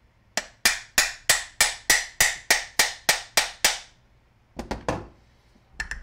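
Soft-faced mallet striking the metal housing of a Milwaukee air palm sander, a rapid run of about a dozen sharp blows, roughly three a second, each with a short ring, to knock loose the press-fit motor assembly. A few duller knocks follow near the end.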